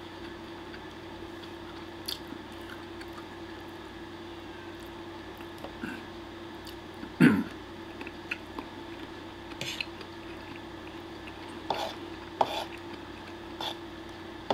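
A man chewing and slurping spaghetti pepperoncino, with scattered light clicks of a fork on the plate over a steady low hum. A louder short mouth sound, falling in pitch, comes about seven seconds in.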